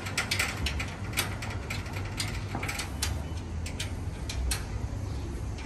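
Steel-tube motorcycle shipping crate clicking and clanking as its bars are worked apart by hand. A quick run of sharp metal clicks in the first second or so, then scattered single clicks, over a low steady hum.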